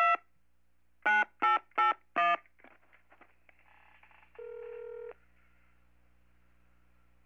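Telephone keypad tones as a number is dialed: one beep at the start, then four quick beeps about a second in. Faint line clicks follow, then a single ring tone of under a second about four and a half seconds in, and faint line noise after it.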